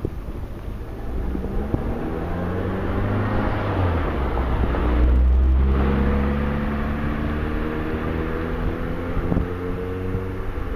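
Local electric train passing a level crossing: its traction motors whine with a slowly rising pitch over a low rumble, loudest about five seconds in as it goes by. There is wind on the microphone.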